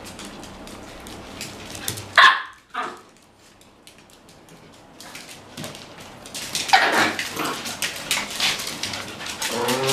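Dogs barking: one sharp bark about two seconds in and a second just after, a short lull, then repeated barking from about six and a half seconds on, among many short clicks.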